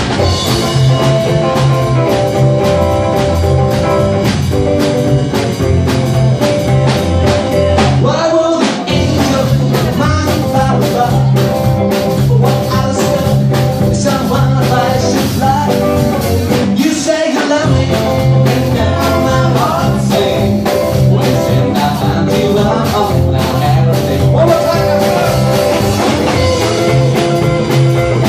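Rockabilly trio playing: electric guitar over upright bass and drum kit, in a stretch without sung words. The bass and drums drop out briefly twice, about a third and about two thirds of the way through.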